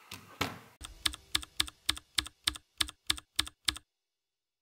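A quick run of about eleven sharp, evenly spaced mechanical clicks, three to four a second, from a mirrorless camera fitted with an adapted Canon 100mm f/2 USM lens. The clicks stop abruptly.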